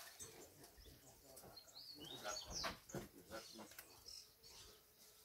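Faint bird chirps: a few short high calls sliding up and down about two seconds in, with scattered soft clicks and knocks.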